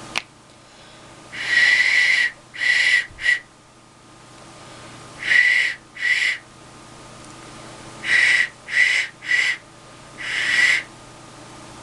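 A handmade clay duck whistle blown in short, breathy toots on one steady high note, nine blows in three runs, testing its voice.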